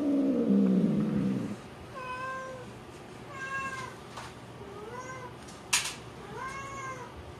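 Long-haired tabby cat calling while being stroked with a grooming glove: a long yowl sliding down in pitch that ends about a second and a half in, then four short meows. One short, sharp burst of noise comes between the last two meows.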